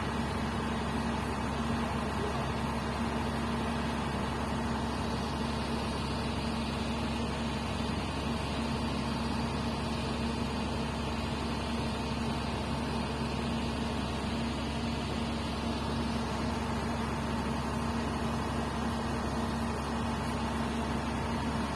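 Diesel engine of a Komatsu PC200 hydraulic excavator running steadily, a constant drone with a steady hum and no revving.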